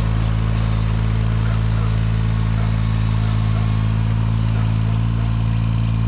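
Mini excavator's engine running steadily at constant speed.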